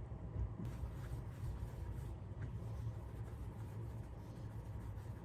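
Quiet room tone: a low steady hum with a few faint small clicks.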